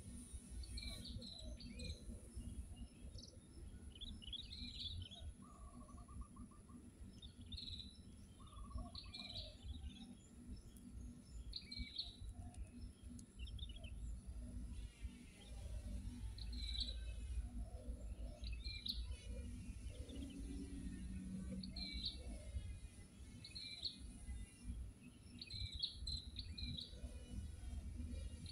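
Small birds chirping and calling outdoors, short high chirps every second or two with a few quick trills, over a steady high insect buzz and a low rumble.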